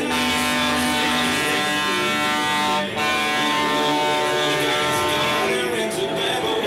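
Loud music made of held, buzzy chords, with a brief dip about three seconds in.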